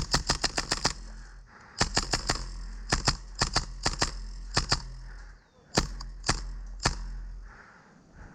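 Airsoft gun firing: a rapid burst of about eight sharp cracks, then a shorter burst, then scattered single shots that grow more spaced toward the end.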